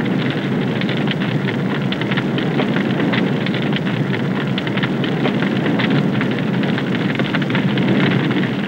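A polyurethane-foam couch covered in polypropylene fabric burning as a fire grown out of control: a steady rush of flames with rapid crackling throughout.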